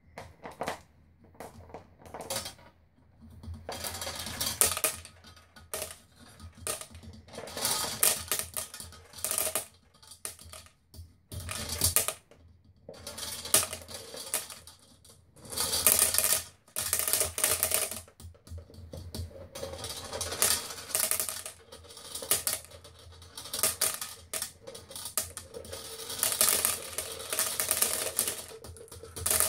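Steel ball bearings used as ball-mill media pour out of a mill jar. They clatter onto a wire mesh sieve and into a pot of other balls, in repeated bursts of rapid clicking as the jar is tipped and shaken.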